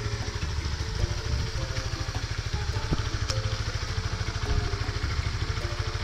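Honda RS150R's single-cylinder four-stroke engine idling with a steady, even pulse.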